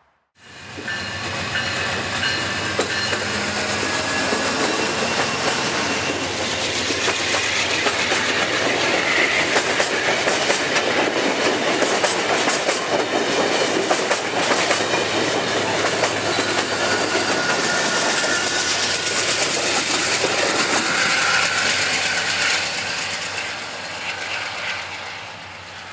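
Amtrak passenger train passing close by, its steel wheels clacking steadily over the rail joints as the cars roll past. The sound starts abruptly about half a second in and eases off slightly near the end.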